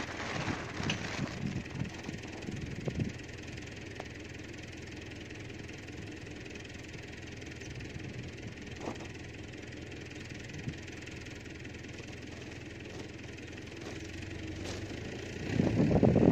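Fertilizer and wheat seed poured from a sack onto a plastic mat, a rustling, rattling pour for the first couple of seconds and again near the end. An engine runs steadily underneath.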